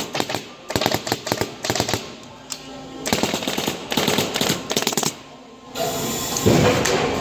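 Two runs of rapid, sharp mechanical clicks, each lasting about two seconds, with a short pause between them, then a steadier noisy sound near the end.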